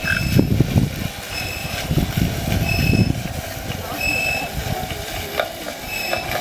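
An animal call repeated as a short, even-pitched beep about every second and a quarter, over irregular low rumbling noise.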